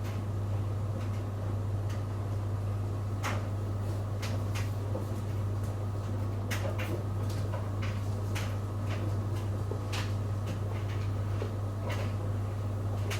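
Samsung washing machine running a wash cycle: a steady low hum from the machine, with irregular clicks and knocks as the drum turns.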